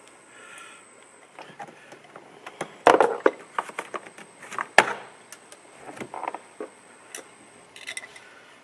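Plastic door trim cover of a 2006 Honda CR-V being pried and pulled off its snug clips by hand: a run of clicks and knocks, two sharp ones about three and about five seconds in the loudest.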